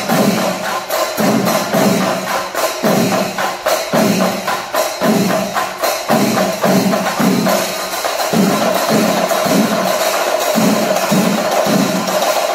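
Kerala chenda melam: a large ensemble of chenda drums beaten with sticks in dense, fast strokes over a steady pulse of deeper beats, with a held brass horn tone and a metallic cymbal shimmer throughout.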